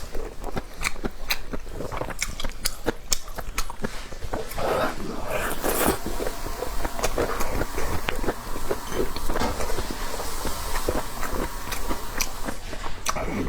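Close-miked eating: biting and chewing with many quick wet clicks and mouth smacks, a few louder smacks about five seconds in.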